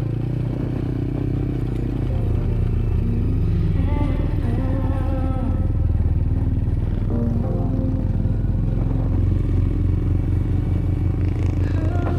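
A small vehicle engine, of the kind a motorcycle has, running steadily, with music playing over it.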